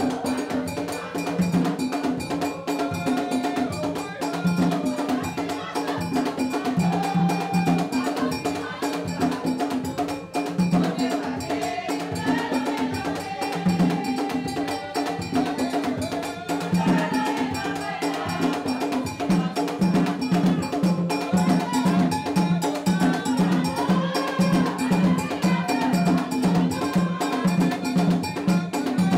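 Vodou ceremonial music: a fast, steady rhythm of drums and a struck metal bell, with singing over it.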